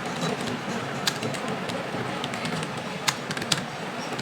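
A few separate sharp clicks, two of them close together about three seconds in, over a steady noisy background.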